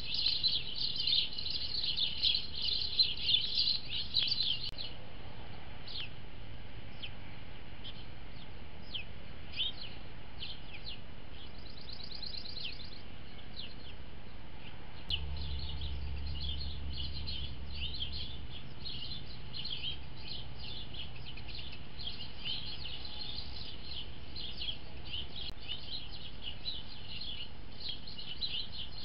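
Small wild birds chirping: many quick, short, high chirps, thick at first, thinning out for about ten seconds, then busy again. A faint low hum runs for a few seconds in the middle.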